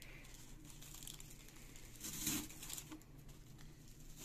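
Tissue paper rustling and crinkling as a pink tissue-paper flower is handled and pressed into place, with one louder rustle about two seconds in.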